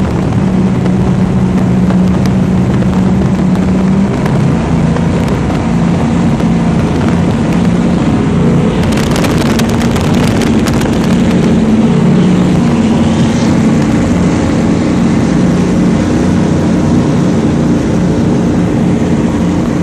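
Supercharged 600-cubic-inch big-block engine of a 40-foot Skater catamaran powerboat running at high speed, a loud steady drone whose pitch shifts slightly about four seconds in. A brief burst of rushing, clicking noise comes over it around nine to eleven seconds in.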